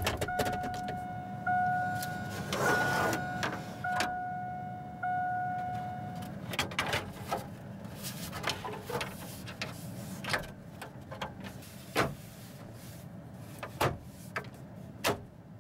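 Plastic dash trim bezel being pushed and snapped into place around a truck's radio: a scatter of sharp clicks and knocks. For the first six seconds an electronic tone sounds in about one-second stretches with short gaps.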